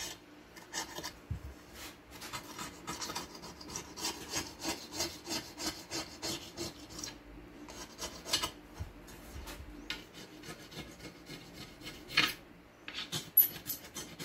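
Stanley knife blade scraping dried crud off a surface in quick, irregular strokes, with a couple of brief pauses.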